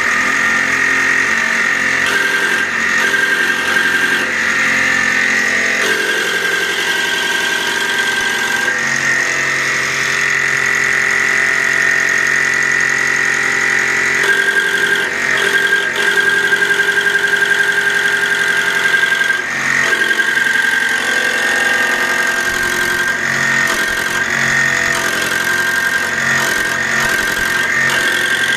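Diesel fuel injection pump being driven on an electric test bench, its injectors firing into the graduated test glasses: a steady high whine with a fast chatter that shifts in tone a few times.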